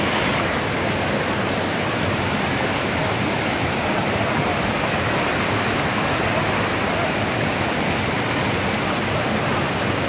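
Waterfall and the stream below it rushing over rocks, a steady, even rush of water.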